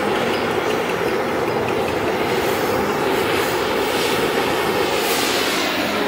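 Butane gas torch running, a steady loud hiss of its flame jet.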